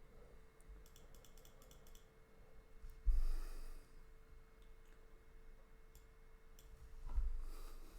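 Quiet clicking at a computer while the software is operated: a quick run of clicks about a second in, then a few single clicks. Two breaths into the microphone, each with a low pop, come at about three and seven seconds, over a faint steady hum.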